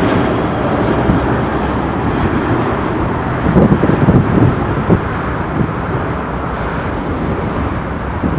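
Jet engine noise of a Boeing 737-800 at takeoff: a steady broad rumble from its CFM56 turbofans. Wind buffets the microphone a few times about halfway through.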